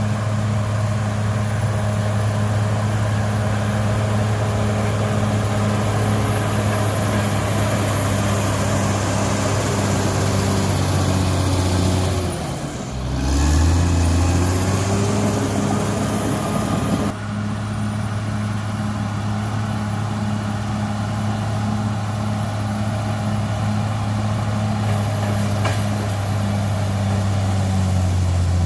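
Cat D6R XL bulldozer's diesel engine running steadily under load, with a thin high whine above the engine note. About halfway through, the engine note sags briefly and climbs back up.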